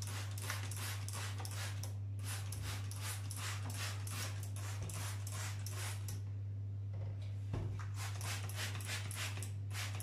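Trigger spray bottle of kitchen degreaser squirting again and again in rapid succession, a short hiss with each pull of the trigger, with a pause of about a second roughly two-thirds of the way in.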